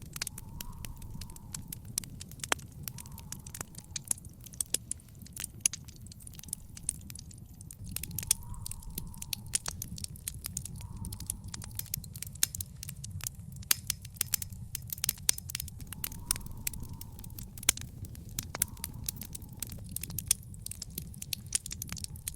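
Wood fire in an outdoor fire pit crackling, with many irregular sharp pops and snaps over a steady low rumble.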